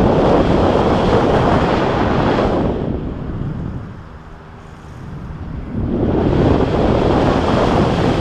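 Wind noise from air rushing over the camera's microphone during a tandem paraglider flight: loud at first, easing off about three seconds in, then rising again about six seconds in.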